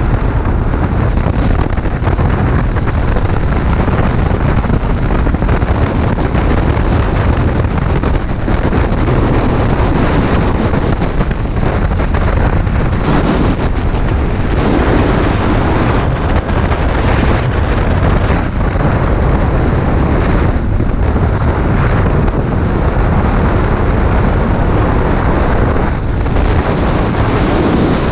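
Heavy wind rumble on the microphone from a moving Motron Revolver 125 motorcycle, with the bike running underneath. The noise is steady and loud, with a few brief dips.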